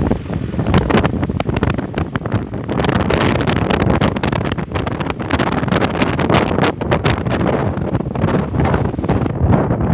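Loud, gusty wind buffeting the microphone, full of crackling pops.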